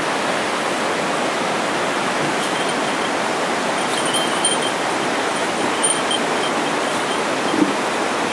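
Mountain stream running high below a footbridge: a steady rush of water, with a few faint high chirps about halfway through.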